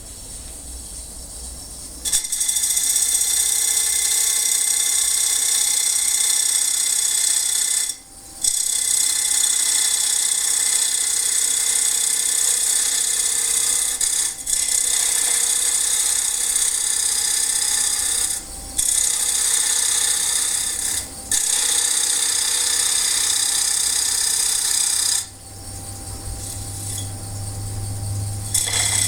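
A turning gouge cuts a spinning bowl blank on a wood lathe, making a loud, high hiss in long passes. The cutting breaks off briefly about 8, 14, 18 and 21 seconds in. Near the end the cutting stops and the lathe's motor hums steadily.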